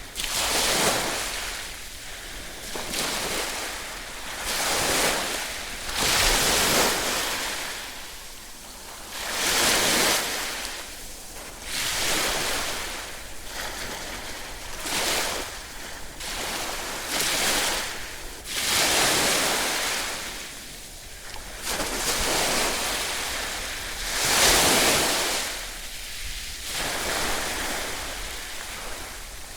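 Ocean waves breaking and washing on a shore, in repeated surges of rushing surf that swell and fall away every two to three seconds.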